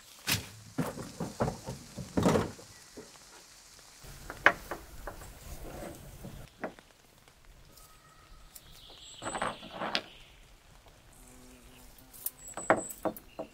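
A guy line and its metal coil-spring tensioner being handled: scattered rustles of cord, with sharp clicks and light knocks now and then, the sharpest about four and a half seconds in.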